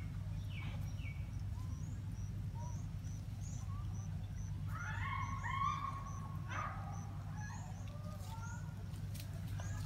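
Steady low hum under a run of short high chirps, repeated about twice a second. A cluster of brief, high squealing animal calls comes about halfway through and is the loudest part.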